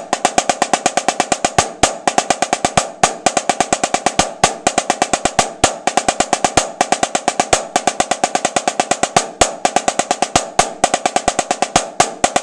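Snare drum played with wooden sticks: a fast, steady stream of even strokes with louder accented strokes at regular intervals, a rudimental snare solo passage.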